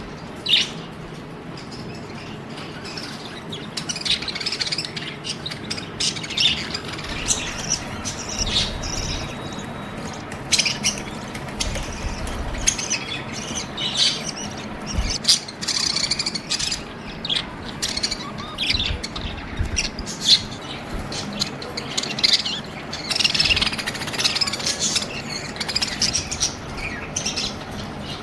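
Budgerigars chirping and chattering continuously, several birds calling over one another with short squawks mixed in.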